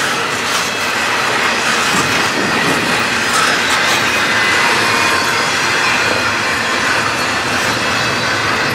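CN intermodal freight train's cars rolling past: a steady rumble and hiss of steel wheels on the rails, with occasional clicks as wheels cross rail joints.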